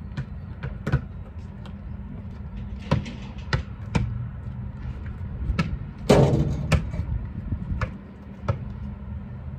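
Basketball bouncing on asphalt in scattered, irregular thuds, with a louder, longer bang about six seconds in, over a steady low rumble.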